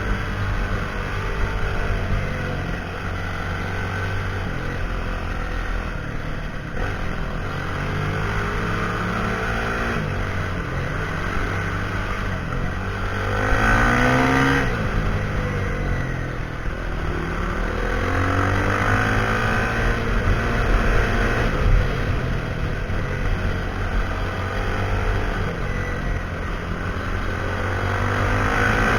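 Husqvarna SMR 511 supermoto's single-cylinder engine through a full Akrapovič exhaust, revving and changing gears, its pitch stepping up and down. It gets louder for a moment about halfway through, with the pitch sweeping.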